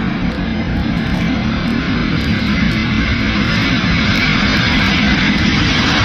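Background guitar music over the jet noise of a four-engine Boeing 747 freighter on low final approach, the engine noise growing louder as it nears.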